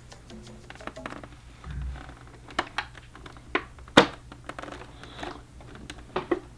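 A Star Wars Captain Cardinal helmet being handled and worked down over a head: scattered clicks, knocks and rustles, with a low thud near two seconds in and one sharp knock about four seconds in.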